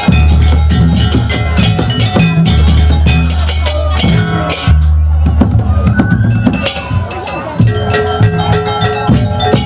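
Jaranan gamelan music: kendang barrel drums beating a fast, dense pattern over a deep gong hum and the ringing of metallophones.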